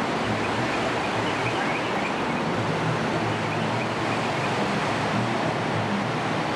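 Steady rushing of a large waterfall, a continuous even roar of falling water with a faint low hum underneath.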